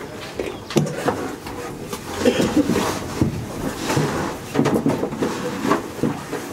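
Scattered clicks and knocks of gear being handled in a race car's cockpit, with low voices in between.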